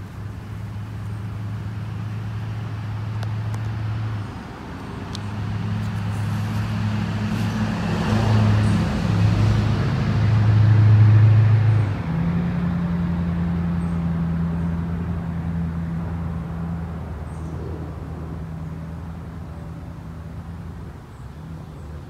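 A motor vehicle's engine running with traffic noise: a steady low hum that shifts in pitch, swelling louder toward the middle, dropping off suddenly just past halfway, then fading slowly.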